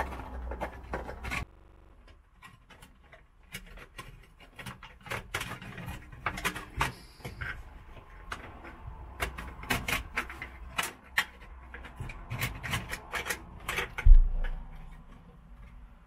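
Irregular scraping, rubbing and clicking of a wire coat hanger being worked through the steel roof channel of a VW bay bus, with one heavier thump near the end.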